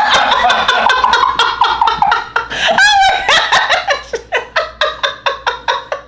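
People laughing hard after a joke: a long run of quick laughing breaths with a high squeal partway through, fading away over the last couple of seconds.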